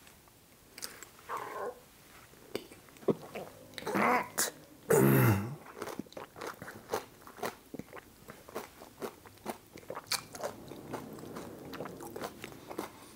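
Close-up mouth sounds of a person biting into a panko-crusted deep-fried old-fashioned cocktail ball and chewing it: a series of crisp crunches and wet chewing clicks. About five seconds in there is a louder muffled vocal sound, falling in pitch, made with a full mouth.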